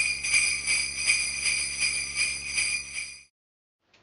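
Sleigh bells jingling in a steady shaking rhythm, cutting off suddenly about three seconds in.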